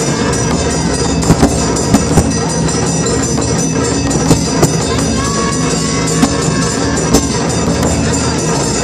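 Japanese taiko drum ensemble playing: a large barrel drum and a row of small stand-mounted drums beaten with sticks in a dense, steady rhythm, with louder accented strikes standing out every second or so.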